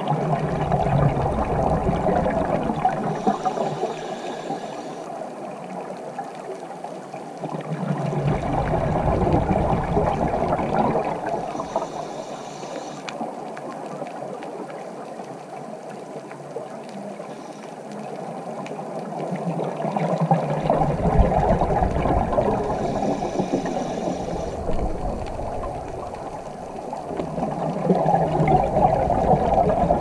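Underwater scuba-diving sound: a diver's regulator hisses on each inhalation, and rumbling bursts of exhaled bubbles follow, repeating every several seconds over a steady watery wash.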